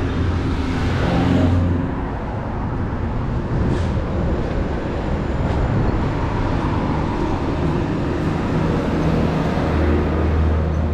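Road traffic running close by: engines humming steadily, with a louder vehicle passing about a second in.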